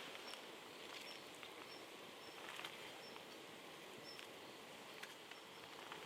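Quiet outdoor ambience with a faint, short high chirp repeating about twice a second, and a few soft clicks.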